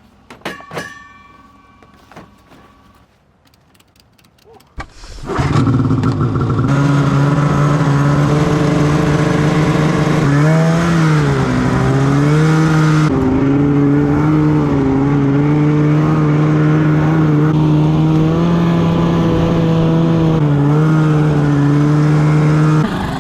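Snowmobile engine running loud and steady under load, coming in suddenly about five seconds in after a few faint clicks; its pitch dips and climbs back once near the middle.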